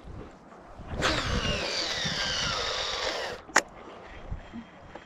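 Okuma Citrix 364 baitcasting reel on a cast, its spool whizzing as braided line pays out. The whir starts about a second in, falls in pitch as the spool slows, and stops abruptly after about two and a half seconds, followed by a single sharp click.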